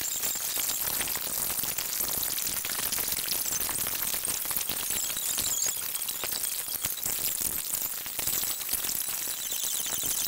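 Dining-room sound sped up about sixty times: a dense, high-pitched chittering of fast clicks and hiss, with the voices and clinking of a busy restaurant squeezed far above their natural pitch.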